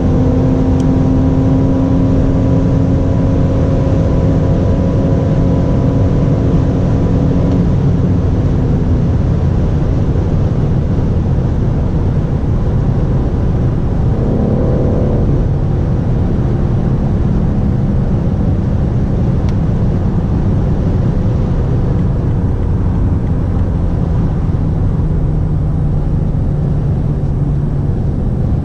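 BMW M760Li's twin-turbo 6.6-litre V12 driving at a steady high speed, its engine drone holding level over a constant loud rush. The engine note fades about nine seconds in and settles to a lower tone later on.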